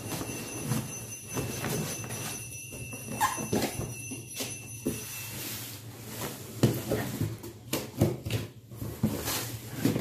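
Snap-off utility knife cutting the packing tape along a cardboard box seam, with scraping and rustling of the cardboard and a few sharp knocks as the box is handled, mostly in the second half.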